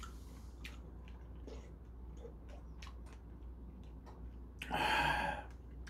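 A person chewing crunchy food with the mouth closed: scattered soft crunches and clicks, with a brief louder noise about five seconds in.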